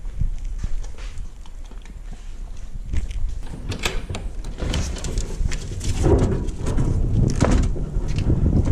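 Chicken-wire pen gate or fencing rattling and knocking as it is handled, with many sharp clicks and clatters from about three seconds in. Under it runs a low rumble of wind on the microphone that grows louder.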